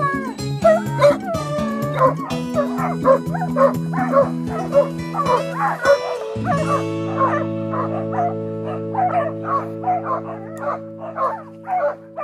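Harnessed sled dogs whining, then yipping and barking over and over, about two calls a second, eager to run, over background music with long held chords.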